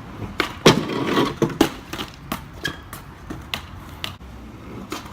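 Skateboard clattering: a loud knock about half a second in, then rolling noise and a scatter of smaller knocks and clicks of the board and wheels.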